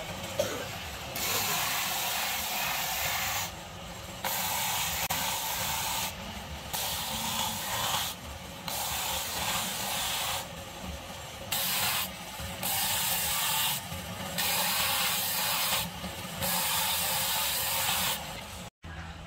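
Horizontal disc sander sanding small wooden box parts: a loud hissing rasp of wood on the spinning abrasive disc, coming in repeated spells of one to two seconds as each piece is pressed on and lifted off, over the low steady hum of the motor.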